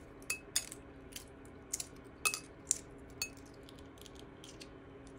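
Hard-boiled egg being peeled by hand: light crackles of shell breaking and small clicks of shell pieces dropping onto a ceramic plate, a dozen or so scattered irregularly, some with a brief tiny ring.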